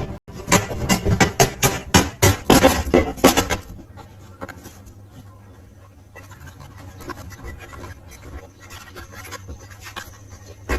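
Rapid scraping strokes, about five a second, for the first three and a half seconds, then a faint low hum with scattered light ticks.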